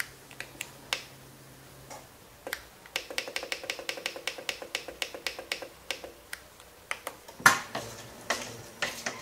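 Moulinex Cuisine Companion's touch-panel buttons clicking and beeping: a few single presses, then a fast even run of about five clicks a second as the timer is stepped up to 20 minutes. About seven and a half seconds in there is a louder, rougher sound as the cooking programme starts.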